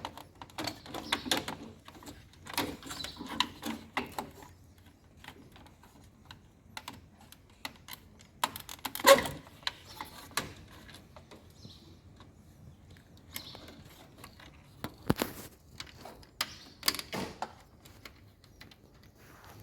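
Irregular plastic clicks and rattles of wiring-harness connectors being handled and plugged onto a washing machine's main control board, with a louder knock about nine seconds in.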